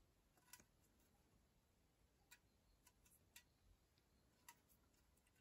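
Near silence with a handful of faint, irregular clicks: fingers and nails shifting on an aluminium drinks can as it is turned in the hands.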